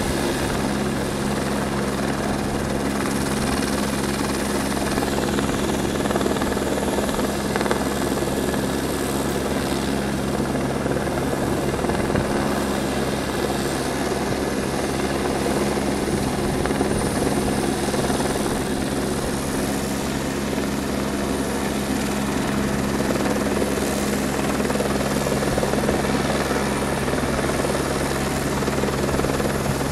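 Police helicopter running steadily overhead, a constant rotor and engine noise with a steady low hum that does not change.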